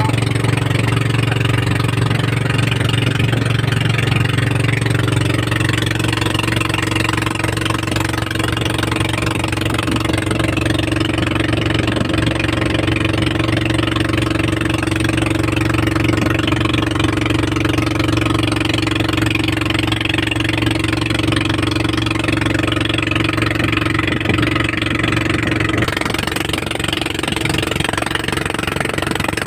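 Outrigger fishing boat's engine running steadily under way, a deep, even hum, with water rushing along the hull. The deepest part of the hum drops away near the end.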